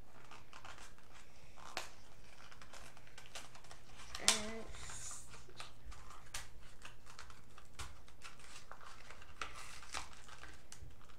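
A toy blister package being worked open by hand: scattered crinkles, clicks and small tearing sounds of the plastic and card, with a brief voice sound about four seconds in.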